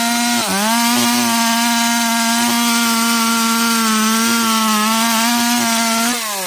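Chainsaw running at full speed through wood, dipping in pitch briefly about half a second in, then holding a steady high whine before its revs fall away near the end as the throttle is let off.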